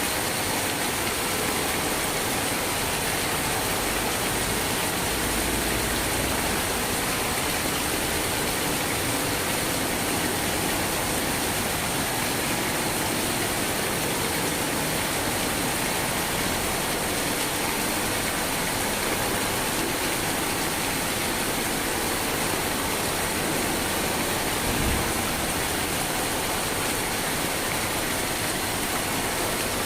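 Steady rain falling without a break, an even hiss.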